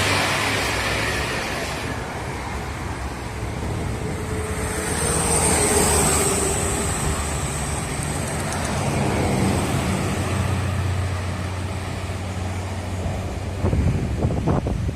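Highway traffic passing: engine rumble and tyre noise of cars and buses, swelling as vehicles go by about five and ten seconds in.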